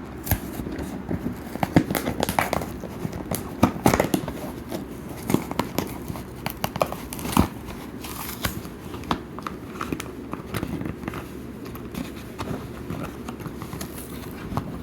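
Plastic blister pack and cardboard backing card of a Hot Wheels die-cast car crinkling, crackling and tearing as the packaging is opened by hand. The sharp crackles are densest and loudest in the first few seconds and then come more sparsely.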